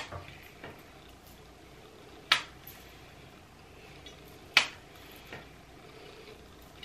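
Sharp plastic clacks from a flat iron being handled while straightening hair: three distinct clacks about two seconds apart, with a few fainter ticks between them.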